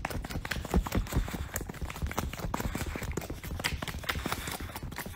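A dog nuzzling and licking a person's face right at the phone's microphone: a fast, irregular run of clicks and rustles over a low rumble.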